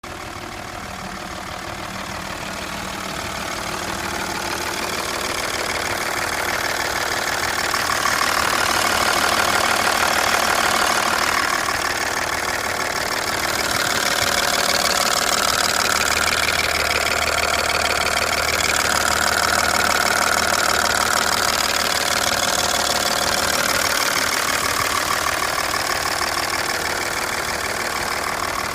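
Audi A6 C5's 2.5 TDI V6 diesel engine idling with a knocking sound, getting louder over the first several seconds.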